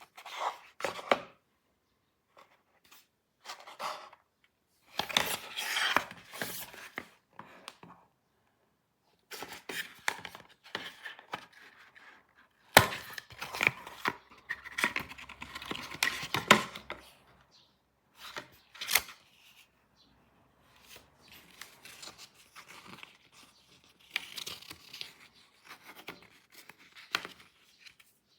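Hand-handling noises in stops and starts: rustling and tearing, as of packaging being opened, with sharp clicks and knocks between short pauses.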